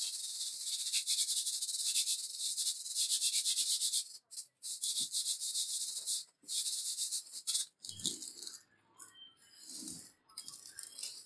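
Sandpaper scrubbing rust off the flat of a steel hand-saw blade: a steady, high scratchy rasp for about four seconds, then in shorter broken strokes with a few dull thumps near the end.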